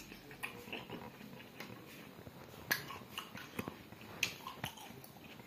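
Watermelon being chewed: soft wet mouth smacks and clicks scattered irregularly, a few sharper than the rest.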